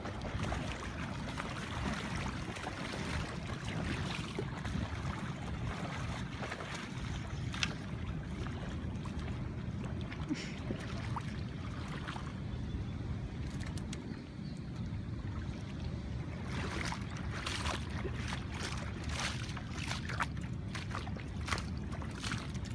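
Shallow river water sloshing and trickling as a person and a dog wade through it, over a steady low rumble. In the last several seconds comes a run of short sharp splashes and clicks.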